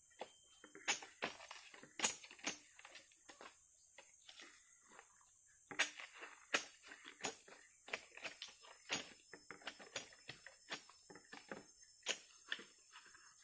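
A blade cutting into a standing green bamboo stalk: irregular sharp knocks and cracks, sometimes several close together, with a few louder strikes.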